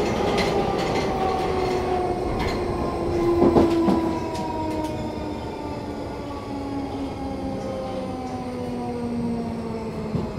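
London Underground 1972 Stock train running on the rails, its whine falling steadily in pitch as it slows, with wheels clicking over rail joints. A louder clunk comes about three and a half seconds in.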